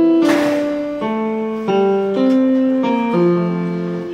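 Electronic keyboard played in sustained, piano-like chords that change every half second or so. A brief hissing crash sounds about a third of a second in.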